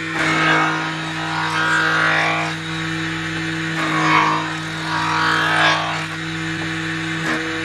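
Jointer on a combination woodworking machine running with a steady motor hum, its cutterhead planing a board fed over it by hand; the cutting noise swells four times as the board makes repeated passes.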